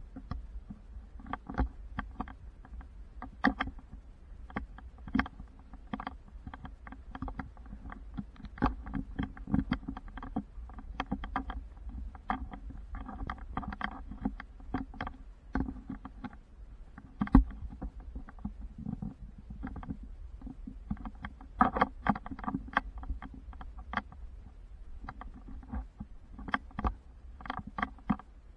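Handling noise from a camera being carried and jostled: irregular clicks, knocks and rubbing over a low rumble, with a sharper knock about 17 seconds in and a cluster of louder ones about 22 seconds in.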